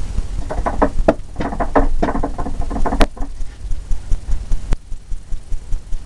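Paint brush wet with odorless paint thinner being whacked to knock the thinner out of its bristles: a quick run of knocks, about six a second, lasting a little under three seconds. A low steady hum runs underneath.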